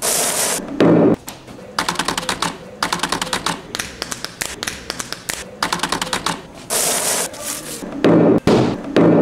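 Clay pebbles rattled by hand in a plastic pot: quick runs of clicking, broken by heavy thumps about a second in and again near the end.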